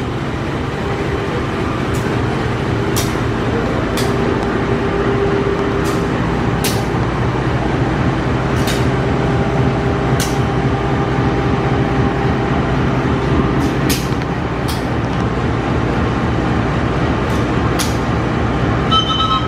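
CC 201 diesel-electric locomotive (GE U18C) idling at a standstill: a steady engine drone, with scattered light clicks and a brief high tone near the end.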